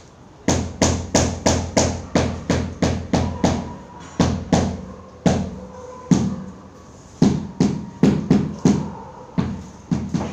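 Repeated hammer blows on a construction job: sharp knocks about three a second, in runs broken by brief pauses.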